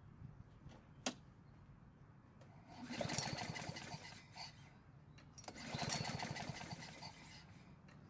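Honda HRN 216 lawn mower's single-cylinder engine being pull-started twice with the recoil cord, cranking over for about two seconds each time without firing, after a click about a second in. The engine will not start, and it spins on for a long time after each pull, which the owner takes as a sign of low compression.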